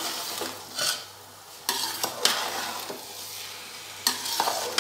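Metal spatula stirring boiled rice into hot milk-and-sugar syrup in a metal pot. Several sharp scrapes of the spatula against the pot ring out over a sizzle.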